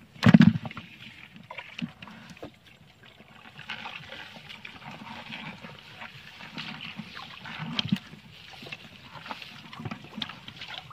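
A loud thud about half a second in as fish are dropped into a plastic basin, then the fish wriggling and splashing in the shallow water in the basin, with small knocks and trickling.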